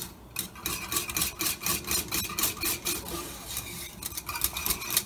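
Wire whisk beating thick, boiling pastry cream in a metal saucepan, its wires scraping against the pan in quick, even strokes as the cream cooks through its minute at the boil.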